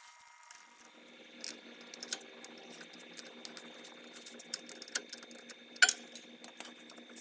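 Scattered sharp metallic clicks and clinks of hand tools on a car's rear brake caliper as its bolt is turned out and the caliper is worked loose, the loudest clink about six seconds in. A steady low hum runs beneath.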